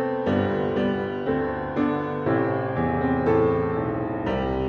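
Background piano music: a slow, even melody with notes struck about twice a second.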